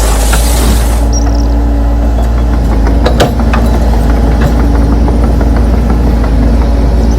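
A heavy engine idling with a steady deep drone. A single sharp click comes about three seconds in.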